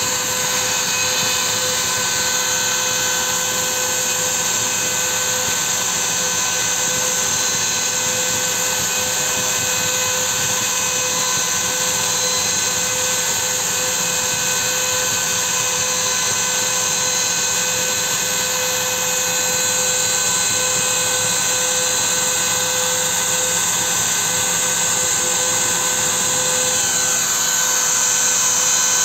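CNC router spindle running with a steady whine of several fixed tones over a hiss as its engraving bit cuts lines into a hardwood log slice, a little louder near the end.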